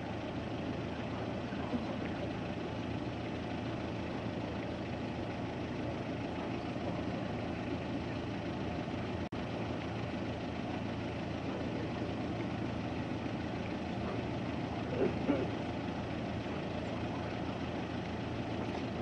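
Steady low outdoor background rumble, like a distant idling engine, with a brief drop-out about nine seconds in and a faint sound around fifteen seconds in.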